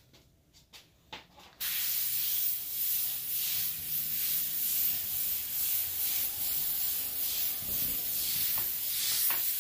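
Airbrush hissing as it sprays paint in a continuous lettering stroke. The hiss starts abruptly about a second and a half in and holds steady, rising and falling slightly.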